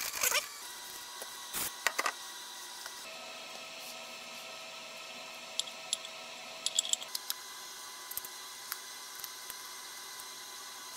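Scattered light clicks, taps and scrapes of small metal carburetor parts being handled: the float bowl of a snowmobile carburetor fitted back onto the body and its screws turned with a screwdriver, with a brief cluster of clicks around the middle.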